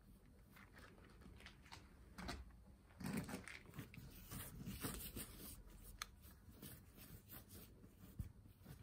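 Paintbrush scrubbing over a canvas: faint, irregular scratchy strokes, busiest and loudest about three to five seconds in.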